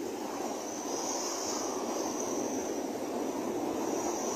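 Shallow ocean surf washing up the beach: a steady rush of water with a hiss of foam that swells twice.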